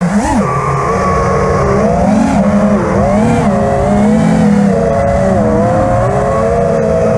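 Freestyle FPV quadcopter's brushless motors (Xnova 2207 1950kv) spinning HQ V2S props: a buzzing motor whine whose pitch keeps rising and falling with the throttle. It cuts in suddenly out of silence.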